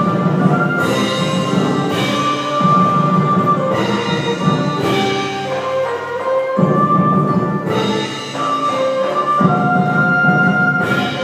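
Traditional Vietnamese water-puppet theatre music: an ensemble plays long held melodic notes over a steady beat of drums and percussion.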